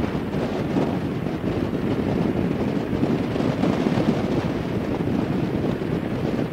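Harley-Davidson Fat Boy ridden at cruising speed: steady wind rush buffeting the camera microphone, over the low running of the V-twin engine.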